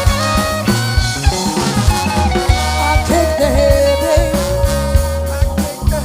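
Live funk band playing an instrumental passage with a driving drum kit, and one long held note about halfway through.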